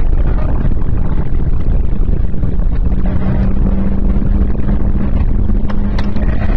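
Renault Clio 1.6 16v's four-cylinder engine running hard at speed, with heavy wind and road rumble in a loud, rough recording. From about three seconds in, the engine note holds steady.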